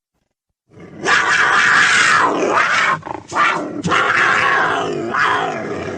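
Big-cat roar sound effect voicing a leopard, harsh and snarling. It starts about a second in, breaks off twice for a moment around the three-second mark, then carries on and slowly fades.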